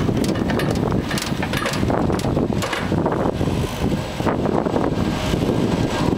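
Chairlift running through its bottom station, the machinery rumbling with irregular clacks and rattles as the chair rides in, over wind noise on the microphone.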